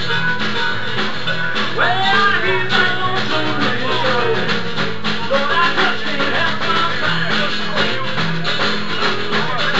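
Live blues band playing with a steady beat: guitar, bass, keyboard and percussion.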